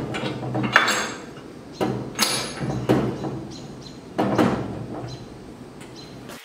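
Metal knocks and clanks, about four or five at uneven spacing, each with a short ringing after it, as a long bolt is worked into the bandsaw's riser block and frame.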